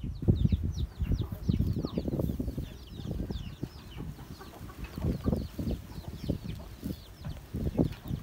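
Chickens clucking, with many short, falling cheeps like chicks peeping, over irregular low knocks and rubbing.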